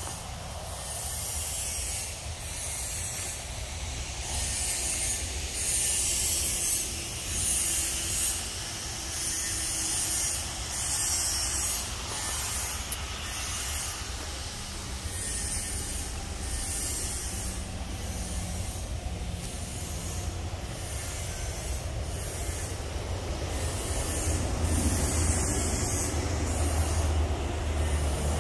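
Outdoor ambience: a steady high hiss that swells and fades every second or so, over a low rumble.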